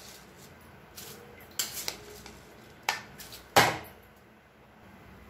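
A few sharp metal knocks and clinks as a vessel of soaked seeraga samba rice is tipped against the rim of a pressure cooker of boiling water, the loudest about three and a half seconds in.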